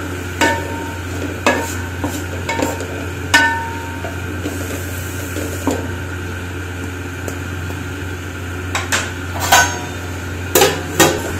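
Wooden spatula stirring diced vegetables in a steel pan, scraping and knocking against the metal every second or so, some knocks ringing briefly, with a cluster of knocks near the end. A low steady hum runs underneath.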